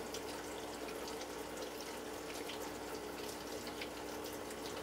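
Nutrient solution raining down inside a vertical hydroponic tower: a quiet, steady patter of falling and splashing water with scattered drips, over a faint steady hum.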